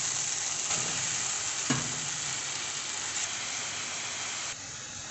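Marinated prawns and onion-tomato masala sizzling as they fry in a pan, with a couple of knocks of a wooden spatula against the pan. The sizzle drops quieter about four and a half seconds in.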